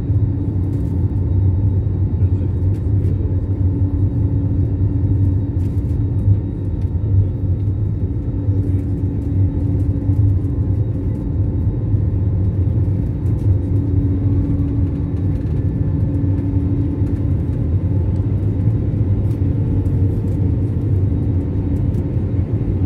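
Airliner's jet engines and airflow heard inside the passenger cabin during takeoff: a steady low rumble with a constant hum.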